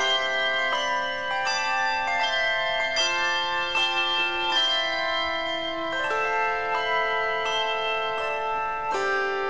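Handbell choir ringing English handbells in a hymn arrangement, a new chord struck about every three-quarters of a second with the bells ringing on over one another.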